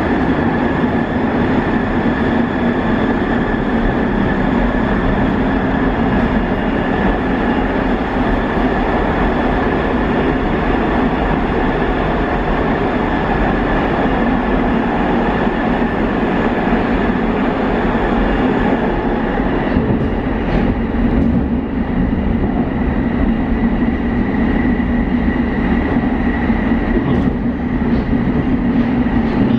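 Škoda Varsovia metro train heard from inside the passenger car while running: a loud, steady rumble of wheels on rail with a high whine held on one note. About two-thirds of the way through the hiss on top thins out and a few sharp clicks come.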